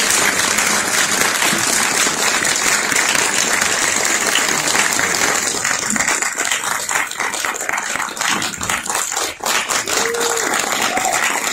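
Audience applauding in a theatre: dense, steady clapping that thins to scattered separate claps over the last few seconds.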